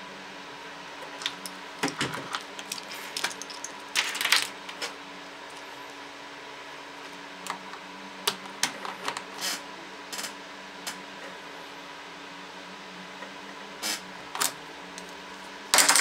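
Scattered clicks, taps and rattles of a mobile phone and charger cables being handled and set down on a wooden desk, some in quick clusters, over a steady electrical hum.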